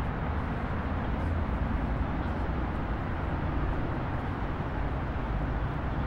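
Steady rumble of wind and rolling noise from travelling along a paved path, with no horn or other distinct event.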